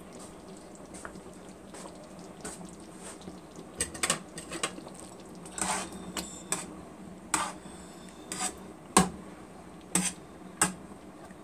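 A spatula stirring thick meat sauce in a large pan. From about four seconds in it knocks and scrapes against the pan about once a second.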